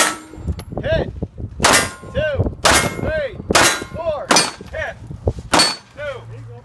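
Pistol shots fired in a steady string, about six in a row at roughly one a second, each sharp crack followed by a ringing clang.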